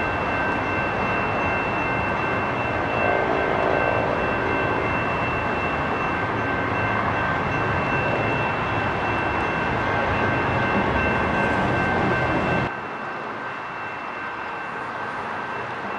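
Railroad grade-crossing warning bell ringing steadily over the rumble of trains at the crossing. About thirteen seconds in it all cuts off abruptly to a quieter, steady hum of traffic.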